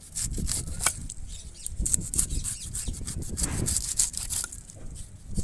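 Large knife blade scraping and cutting through the sheaths of a fresh bamboo shoot to peel them off, as a run of irregular short scrapes with rustling of the husk layers.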